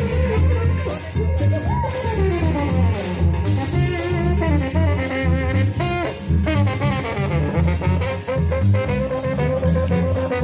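Live Mexican banda music: a brass section plays the melody, with falling runs, over a steady, pulsing tuba bass and drums. No singing.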